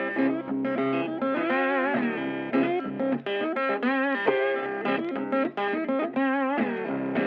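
Background music: a guitar melody with wavering, bent notes.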